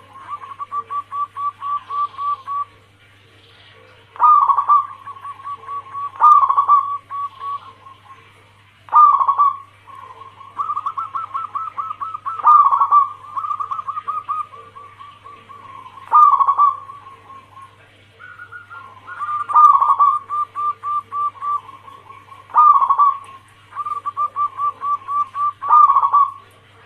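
Zebra dove (perkutut) cooing: runs of short, quick, evenly repeated coo notes, with a louder stressed note every two seconds or so. A faint low hum runs underneath.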